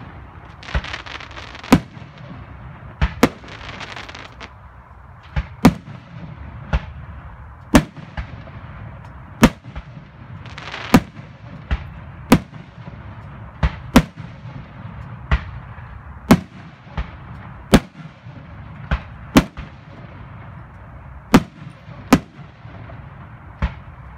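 Aerial fireworks shells bursting in a steady run of sharp booms, about one a second and sometimes two in quick succession, with spells of hissing between some of the bursts.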